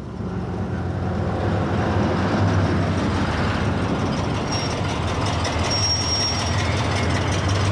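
Engine of a box-bodied pickup truck running steadily as it drives slowly, towing a trailer, with road noise.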